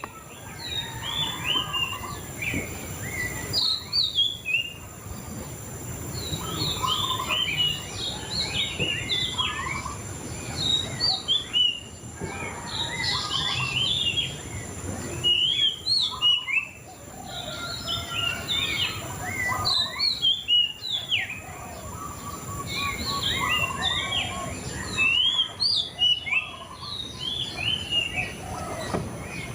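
Murai cacing songbird singing: quick runs of short whistled notes that slide up and down, in phrases broken by brief pauses every few seconds, over a faint steady high tone and low background noise.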